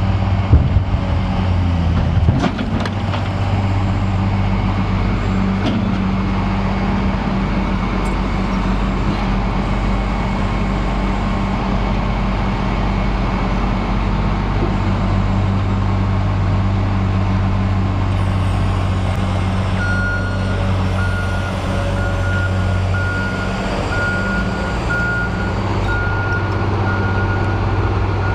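A heavy machine's engine running steadily, with a few knocks in the first couple of seconds. About twenty seconds in, a reversing alarm starts beeping at an even pace.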